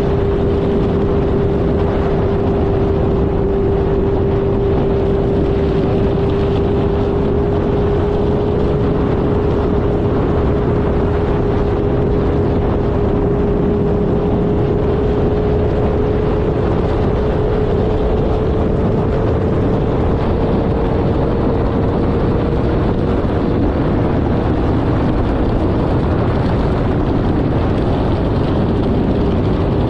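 Motorcycle engine running at a steady cruise under heavy wind rush on the bike-mounted microphone. The engine note rises slowly about two-thirds of the way through, then fades into the wind.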